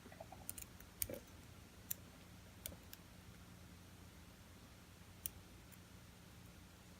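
Faint, sparse metallic clicks of a lock pick and tension wrench working the pin stack inside a Trimax rekeyable padlock during single-pin picking. There are about half a dozen ticks in the first five seconds, the loudest about a second in, and then only a faint steady hum.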